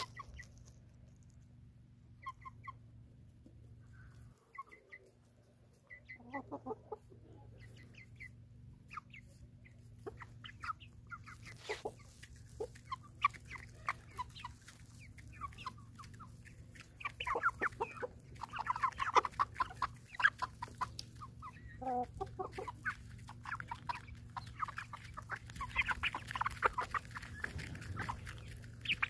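Domestic hens clucking softly and pecking cracked corn from an open hand. The clucks and pecks come only now and then at first, then thicken into a quick, busy run of pecking over the second half as more hens crowd in.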